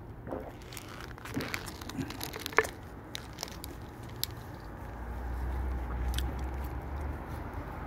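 Close handling noise: a run of small crackles and clicks, with one sharp click about two and a half seconds in. A low rumble comes in past the middle.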